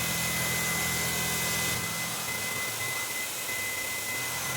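CNC milling machine cutting with a roughing (hogging) end mill taking thin, narrow passes: a steady whirring hiss with a high steady whine, the low hum dropping a little about two seconds in.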